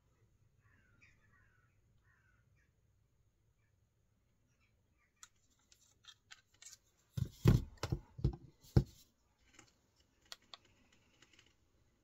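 Kershaw 2032 Esteem slipjoint pocket knife being handled: scattered metallic clicks, then a burst of louder snaps and knocks about seven to nine seconds in, then a few lighter clicks.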